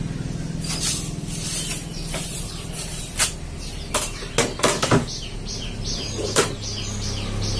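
Soft grass broom brushing across a shop floor, with several sharp knocks from about three seconds in as a plastic crate and a plastic basin are lifted and set down. A steady low hum runs underneath.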